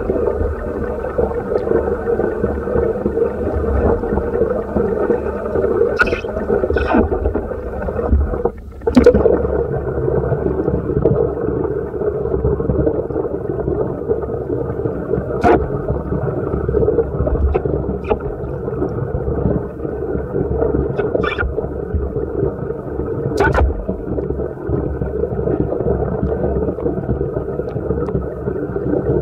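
Muffled, steady underwater rumble and hiss, picked up by a submerged camera. A few sharp clicks and knocks stand out, the loudest about nine seconds in, just after a brief drop in the noise.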